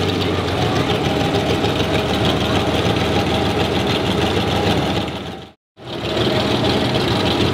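Ferrari 512 BB's straight-piped flat-twelve engine running steadily at low speed. The sound fades out and stops for a moment about five and a half seconds in, then comes back.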